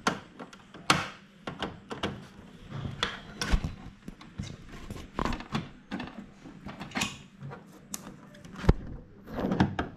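Hands plugging a power cord into the back of a laser printer and handling its plastic casing: a run of scattered sharp clicks and knocks with cable rubbing between them. The sharpest knocks come about a second in and near the end.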